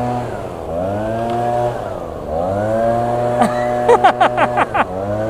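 Small two-stroke engine running at high revs, its pitch sagging and climbing back twice, with a quick run of sharp clicks about three and a half seconds in.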